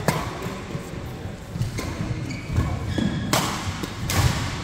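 Badminton doubles rally: rackets striking the shuttlecock with sharp cracks several times, sneakers squeaking on the court floor and footsteps thudding.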